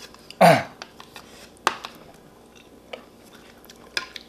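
Close-up eating sounds from someone eating spicy seafood noodle soup: chewing and mouth noises, with one loud short mouth sound that falls in pitch about half a second in, then a few sharp clicks.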